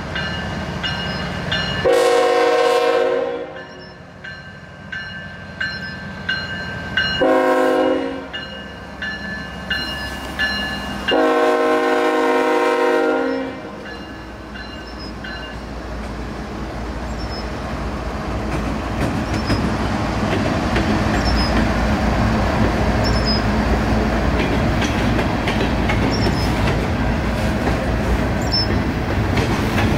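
Norfolk Southern diesel locomotive horn sounding three blasts (long, short, long) for a grade crossing. Then the passing locomotives' engines and the rolling gondola cars make a rumble that grows louder, with wheel clatter and faint squeals.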